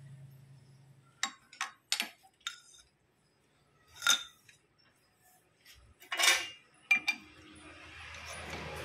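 Sharp metal clinks and clicks of tools and a chuck key against a lathe's steel four-jaw chuck while the universal-joint yoke is set in the jaws. There are several light clicks, a louder clink about four seconds in and a longer ringing clatter about six seconds in, after a low hum fades out in the first second.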